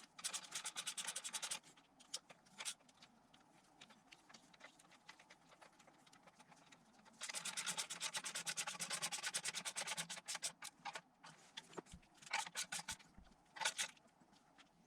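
Ratchet wrench clicking rapidly in two runs, one at the start and a longer one from about seven to ten seconds in, with scattered single clicks and light knocks of tools between.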